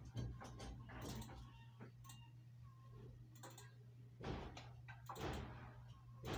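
Quiet room noise: a steady low hum with a few soft knocks and rustles scattered through it, two of them more distinct in the second half.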